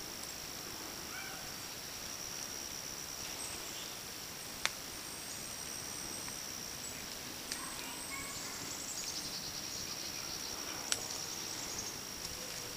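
A steady high-pitched insect trill, with a nearer insect's pulsing trill joining around the middle. Faint bird chirps and three sharp clicks are scattered through it.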